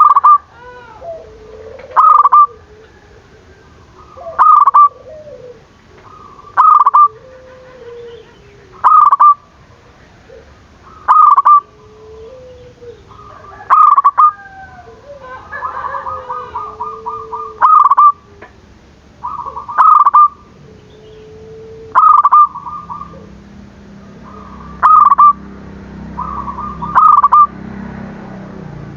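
Zebra dove (perkutut) calling: short, loud coo phrases repeated about every two seconds, with a fainter wavering coo between them and a quick rattling trill about halfway through. A low hum rises under the calls near the end.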